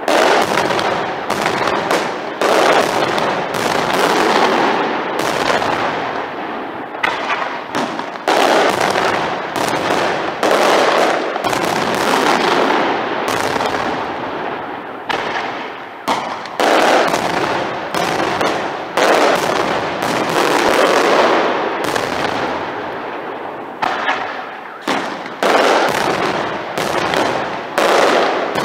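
Fireworks display going off in a dense, continuous barrage: sharp bangs one after another, each trailing off, with a few brief lulls between salvos.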